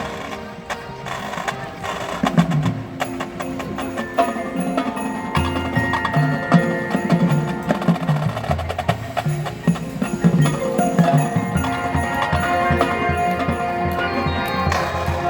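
High school marching band playing its field show in a percussion-heavy passage: pitched mallet percussion and sharp woodblock-like clicks over sustained notes. A deep low part comes in about five seconds in.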